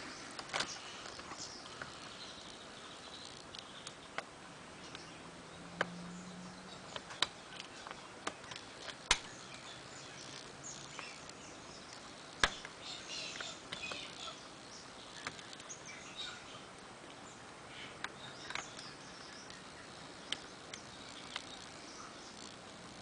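Irregular small sharp clicks and light scraping of a lock pick and tension wrench working the pins of a four-pin ABLE padlock, about a dozen clicks spread unevenly through.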